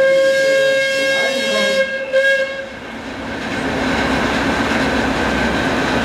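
Steam whistle of the Prussian T12 tank locomotive blowing one steady single-pitched blast of about two and a half seconds, then a steady hiss.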